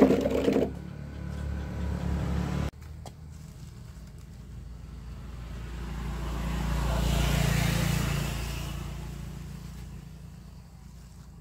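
A road vehicle passing by: it grows louder to a peak about two-thirds of the way through, then fades away. A short loud sound comes right at the start.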